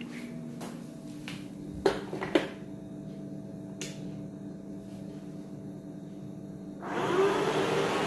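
A robot vacuum is handled with a few sharp clicks and knocks over a low steady hum. About seven seconds in, its suction fan starts up: a loud steady rush with a whine that rises and then holds, as it begins a mopping run with a damp cloth attached.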